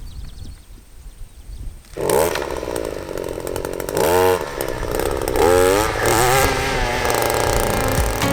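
Small engine of a string trimmer fitted with a saw blade starts up loudly about two seconds in, then revs up and down several times.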